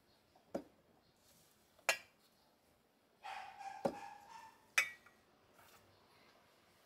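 Glass cruet bottles being set down on a wooden shelf: four sharp clinks and knocks, with a short scrape of glass sliding across the shelf around the middle.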